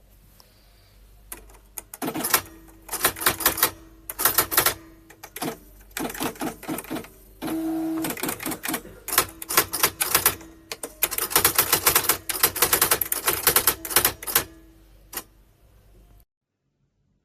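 Nakajima AX-150 electronic typewriter typing: rapid runs of sharp strike clicks with short pauses between them, and a brief steady mechanical whir about halfway through.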